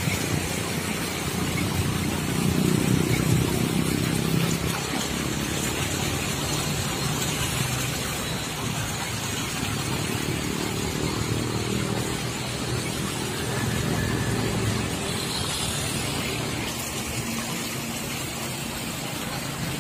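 Road traffic: a steady rumble of passing vehicles, swelling as one goes by about two seconds in and again around fourteen seconds.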